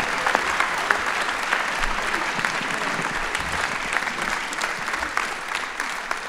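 Audience applauding: a dense patter of many hands clapping that slowly dies down toward the end.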